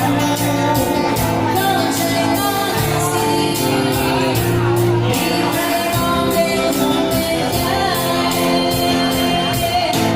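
Live-sounding band music with a steady beat and a singer, in a large room.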